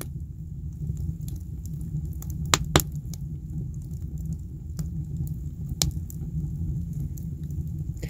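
Log fire burning in a cast-iron wood-burning stove: a steady low rumble of the flames with scattered sharp crackles and pops, the loudest two close together about two and a half seconds in and another near six seconds.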